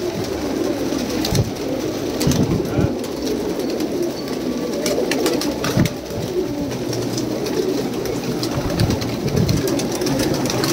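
A flock of domestic pigeons cooing, many birds calling over one another in a steady, overlapping murmur, with scattered sharp clicks.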